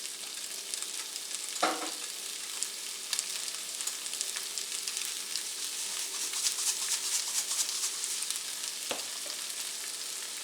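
Oil sizzling and crackling steadily in a skillet as julienned potatoes fry, with two short knocks against the pan, one nearly two seconds in and one near the end.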